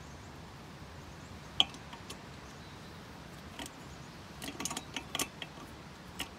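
Light metallic clicks and clinks of hand tools working on a stern drive: one sharp click about a second and a half in, then a quick cluster of small clicks near the end.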